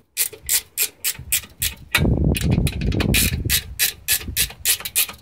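Small socket ratchet clicking quickly and evenly, about four clicks a second, as a nut is run down onto a bolt. A louder low rubbing noise sits under the clicks from about two seconds in.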